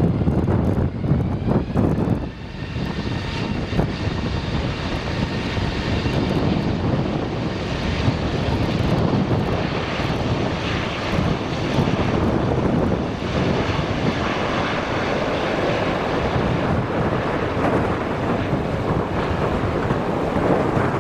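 Airbus A380 jet with four Rolls-Royce Trent 900 engines rolling along the runway: a steady, loud jet roar with an engine whine that rises in pitch in the first few seconds, and gusty wind on the microphone.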